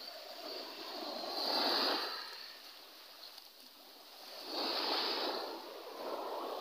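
Small waves washing up on a gravel beach, each wash swelling and fading over about a second: two strong ones, a few seconds apart, and a smaller one near the end.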